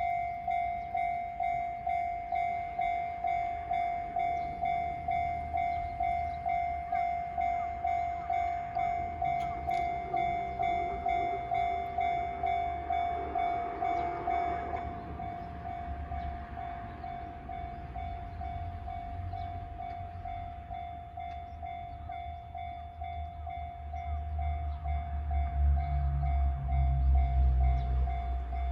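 Japanese electronic level-crossing bell ringing a steady, evenly spaced ding at about two to three strikes a second; about halfway through it drops in level and rings on more softly. In the last quarter the low rumble of a Kintetsu Minami-Osaka Line train builds, loudest near the end as it passes over the crossing.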